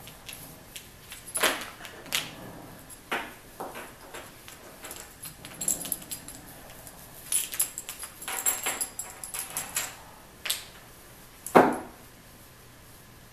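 Fursuit paws with hard yellow claws handling a spotted toy cat on a wooden table: irregular clicks, taps and rustles, some with a light jingling edge, and one sharper knock against the table about eleven and a half seconds in.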